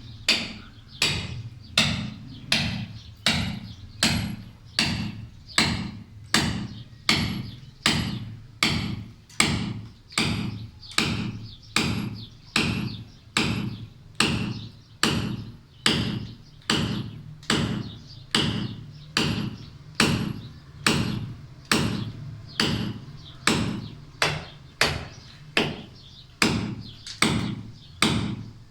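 Hammer striking a steel chisel to chip away a concrete corner, blows landing at a steady rhythm of about four every three seconds, each with a short metallic ring.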